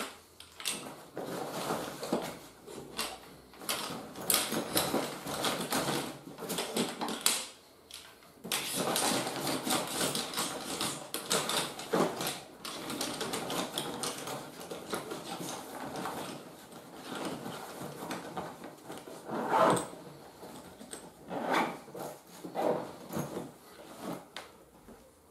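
Nylon carry bag rustling while the folded camping cot's metal poles click and knock against each other as the cot is pushed into the bag, with a few louder knocks near the end.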